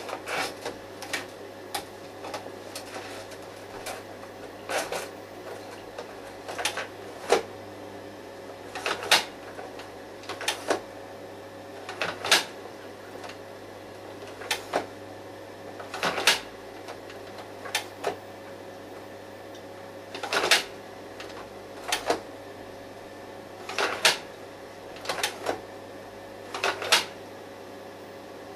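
Kindermann slide projector running with a steady hum from its fan, while its slide-change mechanism clicks and clunks about every two seconds.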